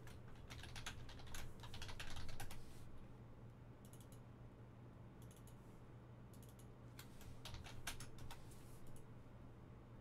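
Typing on a computer keyboard: irregular runs of key clicks, busiest in the first few seconds and again a little past the middle, over a low steady electrical hum.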